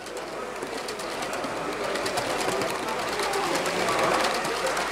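H0-scale model passenger train running past on the layout: a small motor running with fast, fine ticking from the wheels on the track, growing louder as the train draws near. Voices in the hall are faint behind it.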